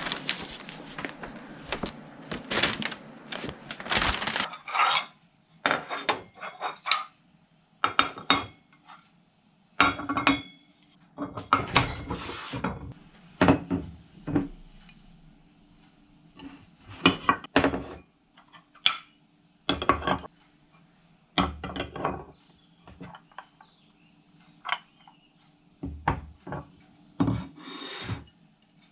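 Dishes and cutlery clinking and knocking in irregular clatters every second or two, over a faint steady hum.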